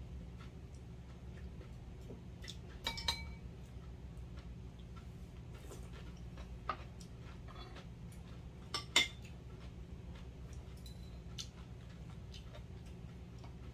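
Metal spoons and chopsticks clinking against ceramic bowls and plates while eating: a handful of sharp clinks, the loudest about nine seconds in, over a steady low hum.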